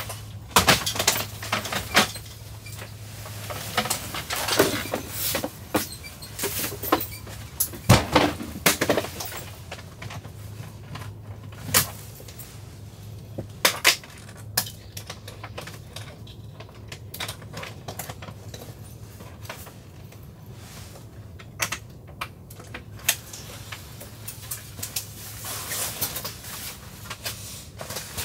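Camping gear being loaded into an SUV's cargo area: plastic folding crates and bags set down, slid and knocked together in scattered clicks and thumps, busiest in the first half, over a steady low hum.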